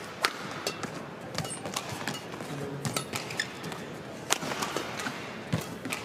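Badminton rally: sharp cracks of rackets striking the shuttlecock every second or so, with short squeaks of shoes on the court.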